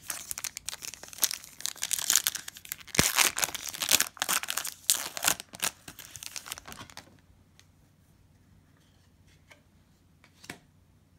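A foil Panini Prizm football card pack torn open at its crimped seam, the wrapper crinkling loudly as the cards are pulled out; the crackling stops about seven seconds in, leaving a few faint ticks.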